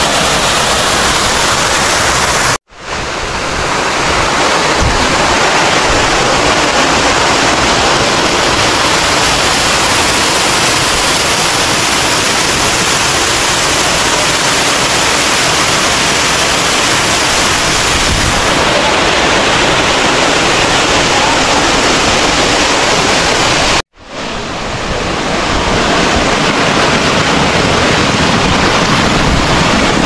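Loud, steady rush of a waterfall close up, water pouring down a rock face and splashing onto stones. It cuts out for an instant twice, about three seconds in and again about three-quarters of the way through, fading back in each time.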